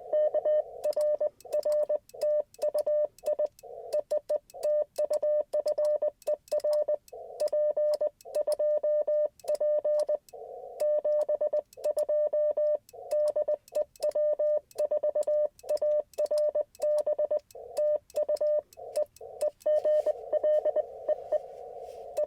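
Morse code (CW) from an Icom IC-705 transceiver: a single mid-pitched tone keyed rapidly in dots and dashes, with narrow-filtered receiver hiss showing in the longer gaps. The keying stops near the end, leaving only the receiver hiss.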